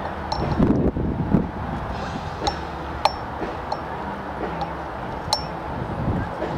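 Wind buffeting the microphone, surging into a low rumble about a second in and again near the end, with a handful of high, short metallic pings that ring briefly, a second or more apart.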